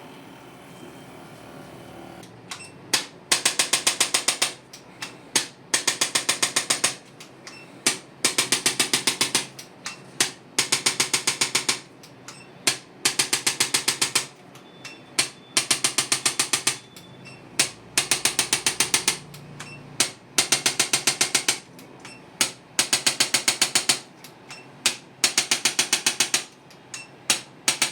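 Handheld percussion massage gun hammering rapidly against the back in repeated bursts of about a second each, roughly every two and a half seconds. It is being used to loosen tight, spasming back muscles.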